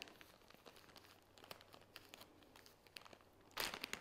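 A small bag of garden nutrients being picked up and handled, its bag crinkling faintly with scattered small clicks, and one louder rustle near the end.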